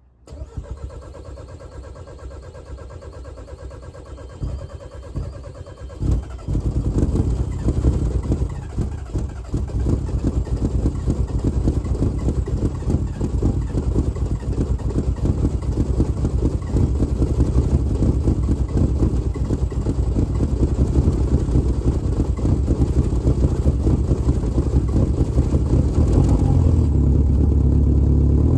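Volkswagen Mk4 Jetta's 1.9 TDI (ALH) four-cylinder turbodiesel on a cold start. It catches about six seconds in and then runs with a rapid, rough chugging pulse, the 'gatling gun' sound of a cold diesel made to chug, growing louder toward the end.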